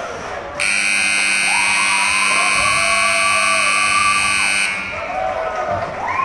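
Ice hockey arena's end-of-game horn sounding one long, steady, buzzing blast of about four seconds. It starts and stops abruptly, signalling that the third period has run out.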